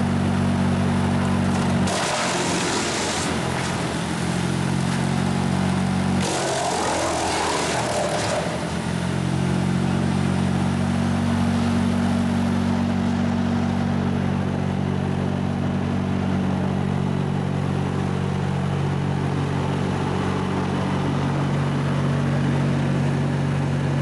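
Mobile wood chipper's 75 hp diesel engine running steadily. Twice, for a few seconds each, about two and six seconds in, the engine note dips under load and a loud crashing, grinding noise comes up as branches are fed in and chipped. The engine then recovers to its steady run.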